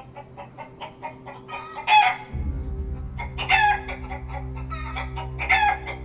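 Hens clucking rapidly, about five clucks a second, with three loud squawks: about two seconds in, at three and a half seconds, and near the end. A low music drone comes in under them about two seconds in.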